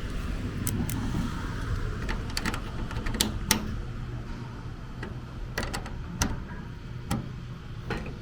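Irregular sharp clicks and taps of hand tools and plastic trim parts being handled during reassembly, over a low steady hum.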